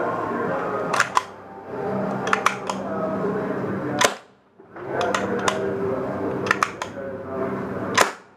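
An Arms Revolution KG9 gas blowback airsoft gun running on green gas fires semi-auto shots, each a sharp snapping crack. The shots come at irregular intervals, some in quick pairs or threes, over a steady room hum.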